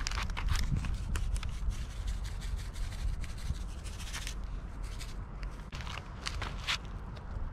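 Hands handling things: a run of short rustles, scrapes and taps, busiest in the first second and again around four seconds in, over a steady low rumble.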